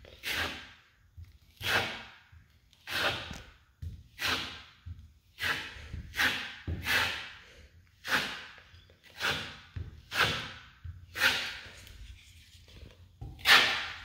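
Metal putty knife spreading and smoothing wet spackle over a drywall patch: short scraping swishes, about one stroke a second, the loudest near the end.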